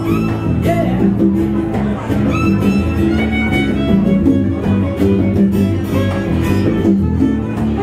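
Live band playing an instrumental passage: a violin carries a melody of held, gliding notes over a strummed acoustic guitar and an electric bass guitar.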